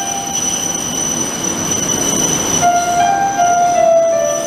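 Passenger train coaches rolling slowly through a station, steel wheels squealing in steady high tones that shift in pitch over the rumble of the bogies. The rumble swells about two seconds in.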